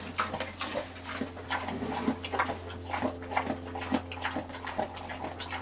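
A sow eating her feed: irregular short chomps and crunches, about two a second.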